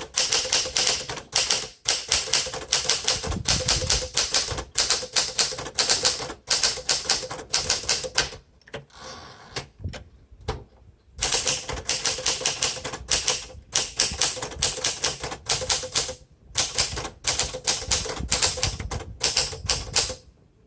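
1961 Smith Corona Sterling manual typewriter being typed on steadily, its typebars striking firmly in rapid runs of clicks. The typing pauses twice, for a couple of seconds around the middle and briefly later on.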